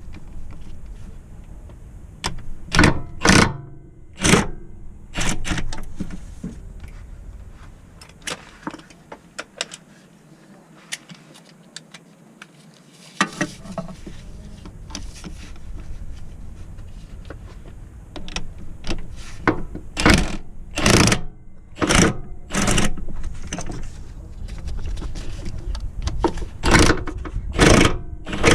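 Mechanic's tools at work on a car: a series of irregular sharp knocks and short bursts of noise, bunched in groups, with quieter stretches between.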